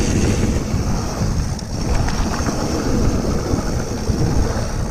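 Wind rushing over a GoPro action camera's microphone as a mountain bike rides fast downhill on a dirt trail, with tyre roll and a few clicks and rattles from the bike.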